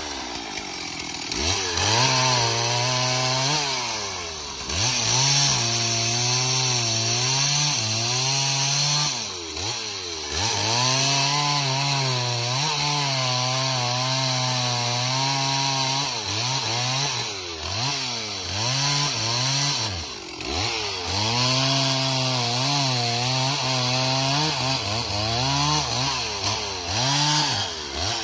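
Stihl two-stroke chainsaw cutting through a thick tree limb. The engine revs up to full throttle for each cut and drops back toward idle between them, about six times, with the chain tearing through the wood over the engine during each cut.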